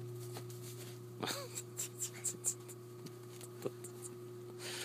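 Snow crunching under bare feet and a body as a girl steps into deep snow and sits down in it: a handful of short, crisp crunches, over a steady low hum.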